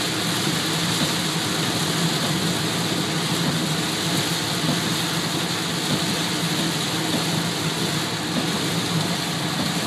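Heavy downpour beating on a moving car's windshield and roof, mixed with tyre spray from the flooded road, heard inside the cabin as a steady hiss.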